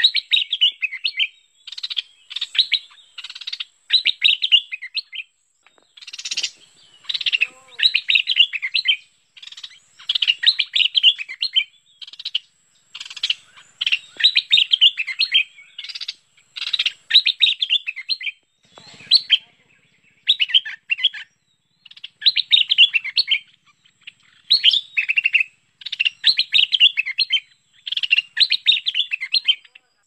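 Stripe-throated bulbul singing: bubbly, chattering phrases of a second or two each, repeated with short pauses.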